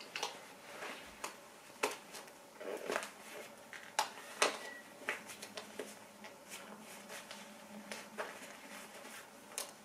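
Small makeup items such as a lipstick, a pencil and an eyeshadow being picked up and set down: scattered light clicks and taps with soft rustling in between.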